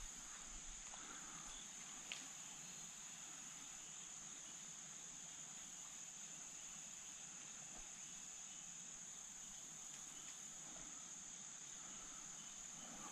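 Faint insect chorus: a steady, high-pitched drone that does not change. One small click sounds about two seconds in.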